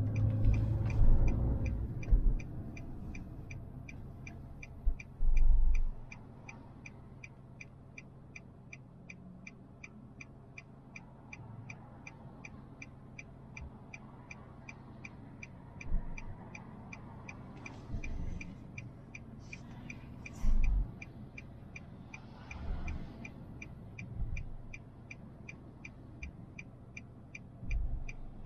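A steady, evenly spaced ticking, about two ticks a second, over a low hum, heard while the car waits at a traffic light. A few dull low thuds come now and then.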